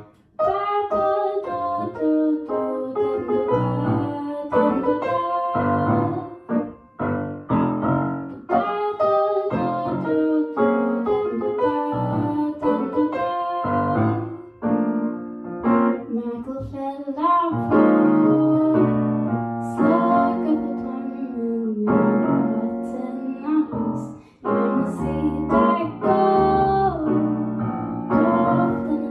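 A woman singing a song accompanied by a grand piano.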